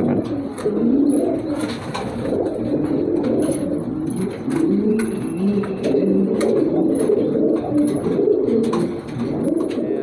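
Many domestic pigeons cooing at once, their low coos overlapping continuously, with scattered light clicks.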